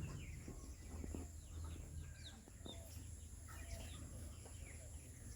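Faint bird calls: scattered short chirps and clucks over a low steady hum.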